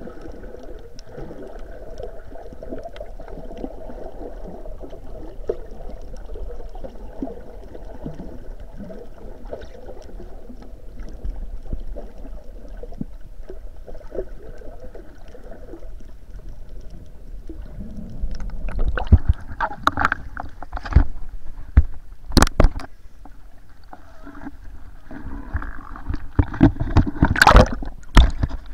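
Muffled underwater sound as heard by an action camera in its waterproof housing: a steady low water murmur. From about two-thirds of the way through come a series of loud knocks and sloshes as the camera is moved up near the surface.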